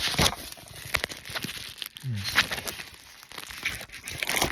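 Takeout food packaging being handled, crinkling and rustling in short irregular bursts.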